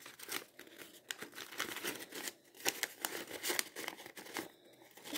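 Folded origami paper crinkling and rustling as hands fit paper modules together, a run of small irregular crackles. It goes briefly quieter near the end.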